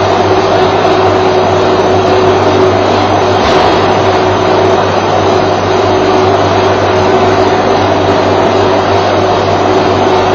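Steady, loud mechanical drone with a constant hum and a held tone, unchanging throughout.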